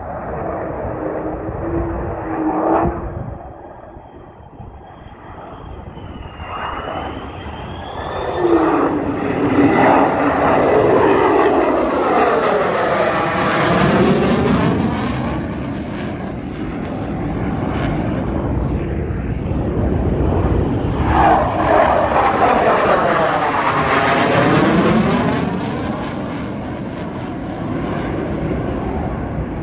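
F-35 fighter jet's engine roaring past low, swelling to two loud passes about ten seconds apart, each sweeping with a phasing whoosh as it goes by. A fainter rising whistle comes before the first pass.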